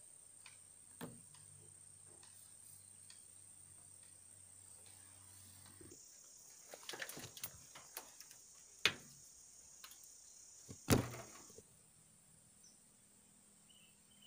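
Quiet background with a faint, steady, high-pitched buzz that drops slightly in pitch about six seconds in. A few sharp knocks come through it, the loudest about nine and eleven seconds in.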